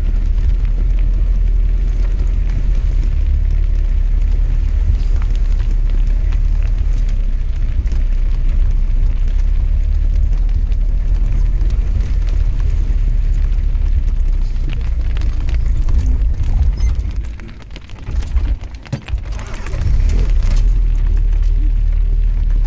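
Jeep driving down a muddy mountain track, heard from inside the cab: a steady low rumble of engine and road noise with scattered rattles and knocks. It drops briefly about three-quarters of the way through, then picks up again.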